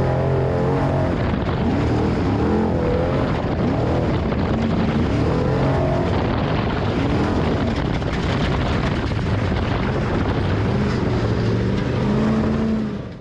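Off-road race truck engine revving up and down over and over, its pitch rising and falling every second or so, under a steady rush of noise.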